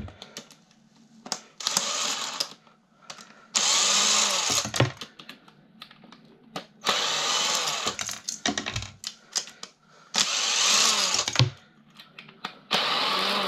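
Cordless drill-driver running in five short bursts of about a second each, its motor pitch rising and falling as it backs screws out of a desk fan housing, with small clicks and handling clatter between the bursts.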